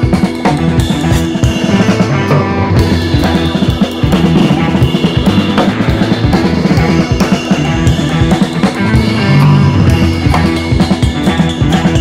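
Background music with a steady drum-kit beat.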